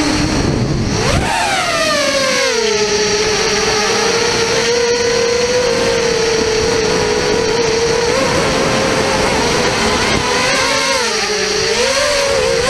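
Electric motor and propeller of an FPV model aircraft whining on its onboard GoPro's microphone. The pitch swoops up sharply about a second in, then holds a steady tone that dips and comes back up near the end.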